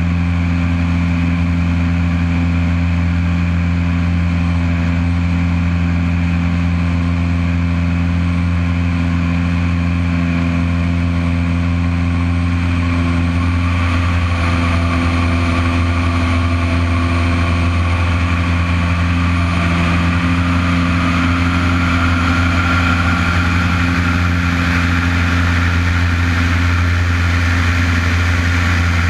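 Single-engine aerobatic plane's piston engine and propeller running steadily in flight, heard from a camera on its wing, the pitch creeping slightly higher after the middle.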